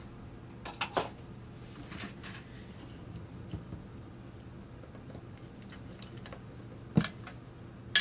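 Small handling noises of objects being moved on a table: a couple of light clicks about a second in, faint scattered ticks, and a single sharp knock about seven seconds in, over a steady low hum.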